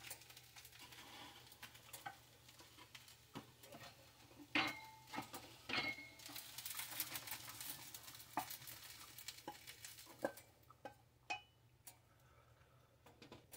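Faint scraping and clinking of a frying pan and utensils against a plate as scrambled eggs and rice are served out, with a few sharper clinks about four and a half and six seconds in.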